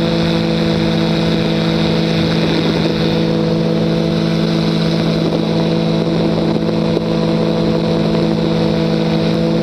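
Weight-shift ultralight trike's engine running at steady power in flight, a constant hum that holds one pitch.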